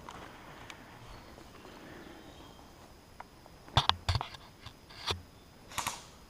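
A few sharp clicks and knocks close to the microphone, bunched about four to five seconds in, then a breathy puff near the end, like a player panting.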